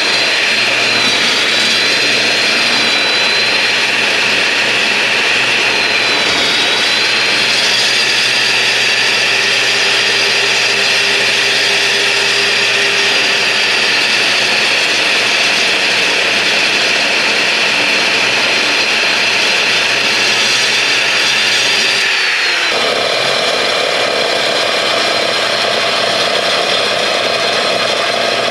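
A power tool working steel runs loudly and steadily with a high whine, its sound shifting abruptly about 22 seconds in.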